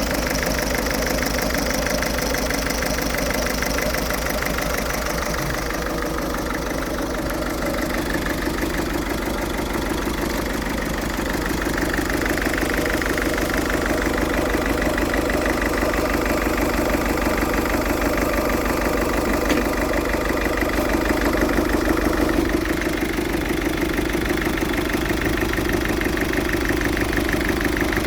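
Ford Fiesta 1.6 TDCi four-cylinder common-rail turbodiesel idling with a rough, uneven idle, a steady diesel clatter with a fine rhythmic pulse.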